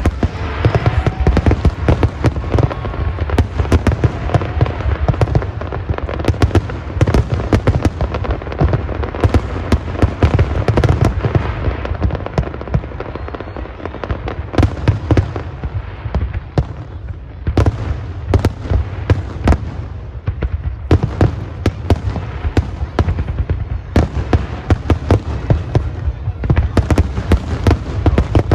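Fireworks going off in a dense, continuous barrage of sharp cracks and bangs over a steady low rumble.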